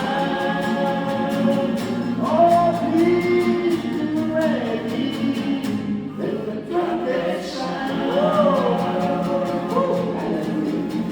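Gospel choir singing over a steady beat: the song's closing bars, with held and sliding sung notes and no clear words.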